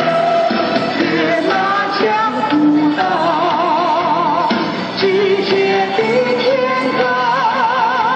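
Recorded music: a slow melody of long held notes, several with a wide, wavering vibrato, over steady accompaniment.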